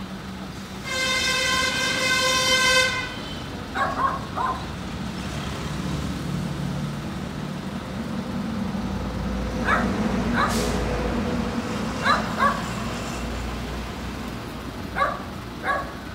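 A vehicle horn sounds one steady note for about two seconds near the start. After that, a dog barks in short pairs or triplets four times, over the low running of a truck engine.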